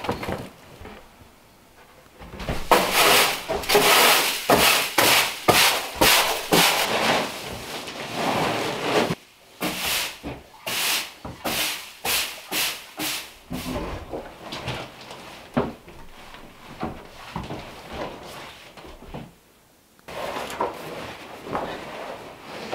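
Rhythmic scraping strokes, about two a second, in two long runs with a short break between them, followed by lighter scattered knocks and handling noise.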